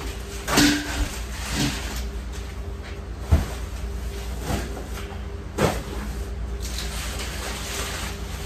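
Cases of plastic-wrapped bottled water being handled and set down on wire shelving: about five short thumps and knocks over the first six seconds, the sharpest a little past three seconds in. A steady low hum runs underneath.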